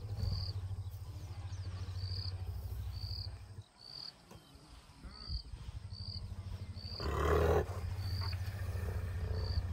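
African elephants rumbling in greeting: a deep, steady low rumble that fades for a couple of seconds and returns, with a louder, rougher call lasting under a second about seven seconds in. A high chirp repeats about every second behind it.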